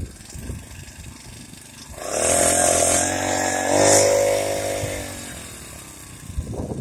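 Small motorized-bicycle engine running at high revs: it comes in suddenly about two seconds in, holds a steady pitch for about three seconds, then fades away.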